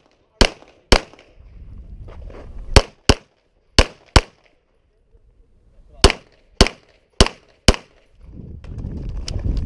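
Glock 34 9mm pistol firing about eleven shots, mostly in quick pairs a third to half a second apart, with a pause of about two seconds in the middle. A low rumbling noise comes in near the end.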